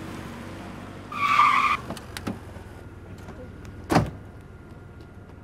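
A Honda CR-V's tyres squeal for about two-thirds of a second, a little over a second in, over a low steady running hum. About four seconds in there is a single loud thump against the car's body.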